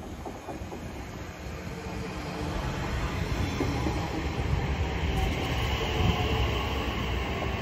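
Elizabeth line Class 345 electric train approaching and running past along the platform. Its wheel and rail noise grows louder over the first few seconds as it nears, then holds steady.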